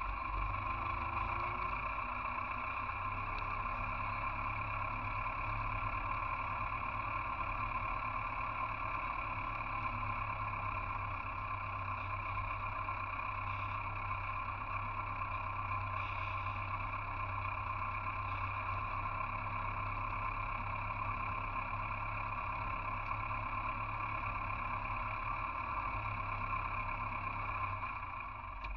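Farm tractor's engine running steadily under way, a constant low rumble that drops off near the end.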